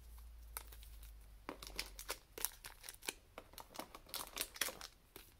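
Booster packs and their plastic and foil packaging crinkling and rustling as they are handled, with many small irregular crackles.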